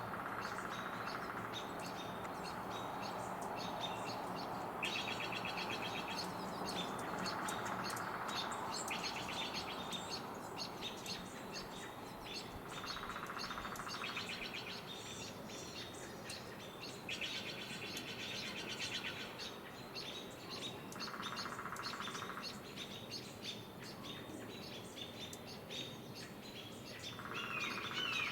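Wild birds singing: dry trills about two seconds long, repeated every few seconds and alternating between a higher and a lower pitch, over scattered short chirps. Near the end a run of short, repeated falling calls begins.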